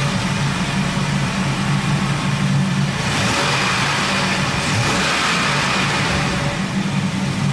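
Chevy Express 1500 van engine running steadily at idle just after being started, its accessory belt driven through a newly replaced tensioner pulley; a test run to hear whether the belt-side noise has gone.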